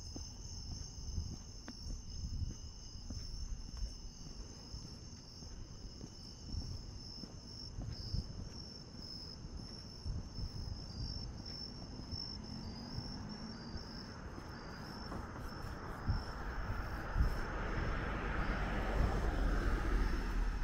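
A steady, high-pitched chorus of crickets and other night insects, with low thumps of footsteps. From about two-thirds of the way in, the noise of a passing car rises and grows louder toward the end.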